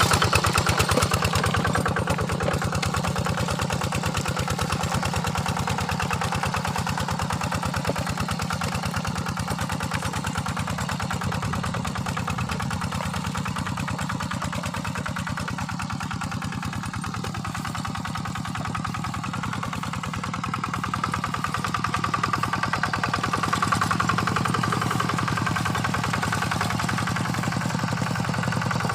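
Quick Impala hand tractor's single-cylinder diesel engine running steadily with a fast, even firing beat. It fades somewhat in the middle and grows louder again after about twenty-two seconds.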